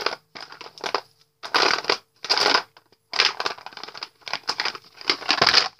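Hands rummaging through and handling plastic Lip Smackers lip balm tubes close to the microphone: a string of short rustling, scraping and clicking bursts.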